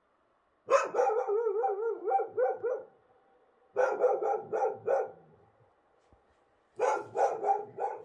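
Wild dogs barking and yelping in three quick bouts of rapid calls, about four or five a second. The first bout opens with a wavering, warbling howl before breaking into short barks.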